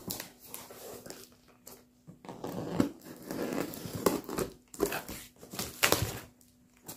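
Knife cutting along a cardboard box and the plastic-wrapped, taped box inside it: plastic film crinkles and cardboard scrapes and tears in irregular strokes. The loudest strokes come near the end, as the cardboard side is pulled away.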